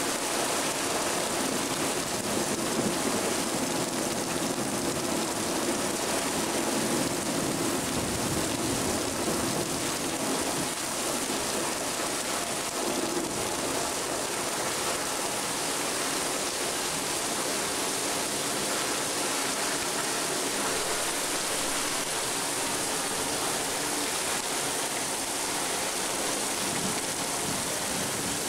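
Heavy thunderstorm rain pouring down steadily: a dense, even hiss of rain on roofs and ground.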